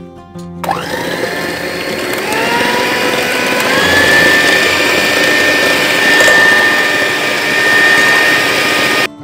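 Electric hand mixer switched on about half a second in, its motor whine rising as it speeds up and then running steady at high speed while the beaters whip eggs and sugar in a glass bowl. It stops abruptly just before the end.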